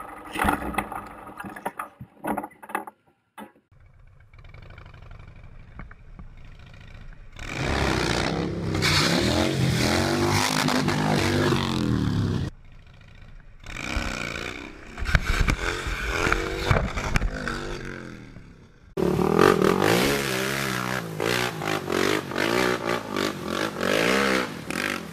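Motorcycle and ATV engines revving, their pitch rising and falling, in several short clips that cut abruptly from one to the next, with scrapes and clatter of crashes in between.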